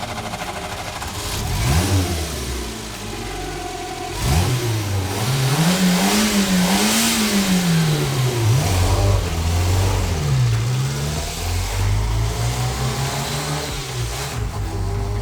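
Renault R4 GTL's small four-cylinder engine idling, blipped once, then revved up and down several times, its pitch rising and falling, before settling back to a steady idle.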